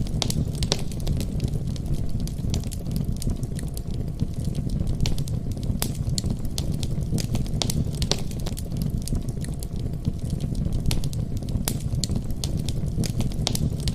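Wood fire burning in a fireplace: a steady low rumble of the flames with irregular sharp crackles and pops throughout.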